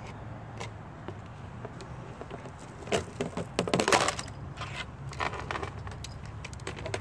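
Plastic and wiring of an old laptop cracking and snapping as a cord is ripped out of it: a burst of quick sharp cracks and clicks about three to four seconds in, then a few scattered clicks.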